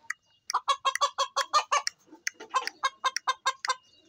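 Chicken clucking rapidly: two runs of short clucks, about seven a second, with a brief pause between them about two seconds in.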